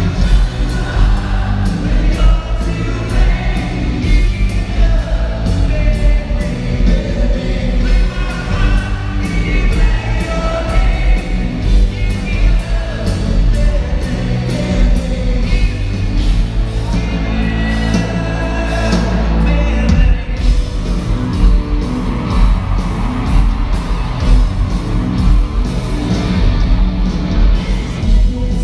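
Live rock band playing loudly in an arena, with the lead singer's voice over a steady drum beat, recorded from the audience with a heavy, boomy low end.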